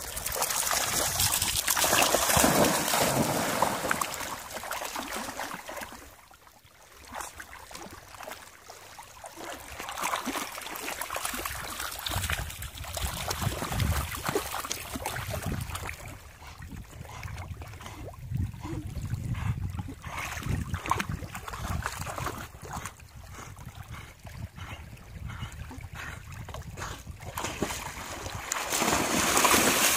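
Dogs splashing and wading through shallow water at a pebble shore, loudest in the first few seconds and again near the end. In between there is quieter lapping water with irregular low rumbles.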